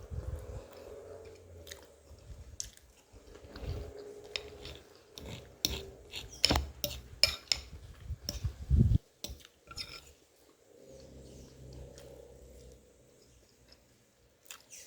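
Close-miked chewing and mouth sounds of someone eating a meal of beans with jerked beef and pasta, with many sharp clicks of cutlery against the dish, most of them between about five and nine seconds in.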